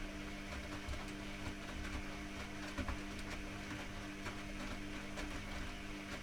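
Privileg Classic 30612 washing machine running with a steady hum and scattered light clicks and rattles, cutting off abruptly at the very end.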